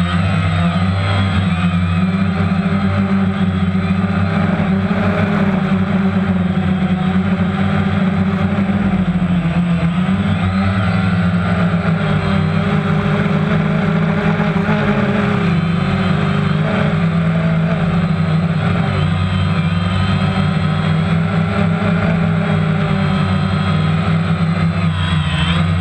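Drone's electric motors and propellers running in flight, heard through the onboard camera as a loud, steady hum whose pitch wavers slightly as the throttle changes.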